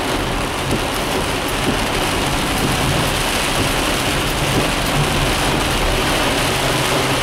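Heavy rain pelting a car's roof and windshield, heard from inside the cabin, a steady hiss over the low hum of the car's engine and road noise.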